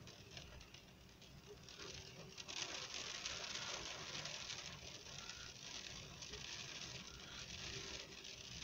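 Rain pattering, faint at first and a little louder from about two seconds in.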